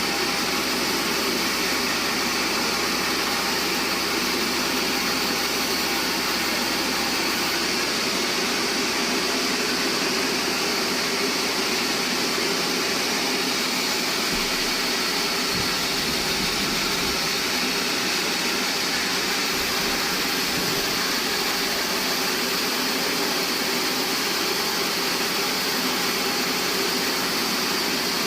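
Band sawmill running and sawing a bayur log: a steady machine drone with a high, even hiss that holds without a break.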